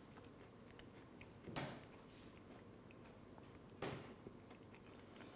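A person quietly chewing a mouthful of dessert with crunchy caramelised pecans and biscuit base, with faint small clicks and two short, louder swishes about a second and a half and about four seconds in.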